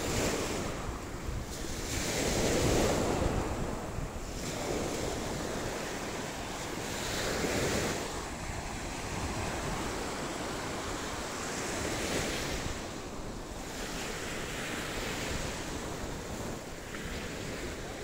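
Surf breaking and washing on a sandy beach, swelling and falling every few seconds, with wind buffeting the microphone.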